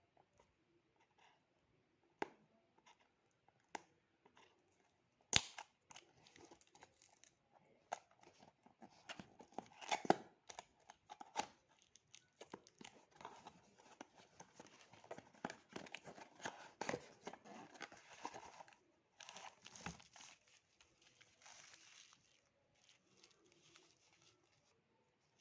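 Packaging being torn open and crumpled by hand. It starts with a few scattered clicks, then from about five seconds in comes a dense run of tearing and crinkling with sharp ticks, which thins out near the end.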